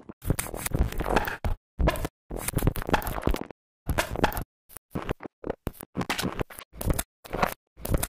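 Experimental noise music: scratchy bursts of noise chopped into abrupt stop-start fragments, roughly two a second, with short silences between.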